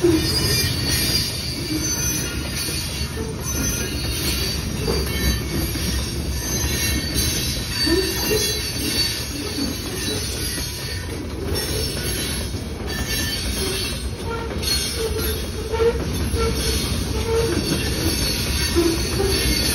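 Covered hopper cars of a freight train rolling past at close range: a steady rumble of steel wheels on rail, with short wheel squeals off and on throughout.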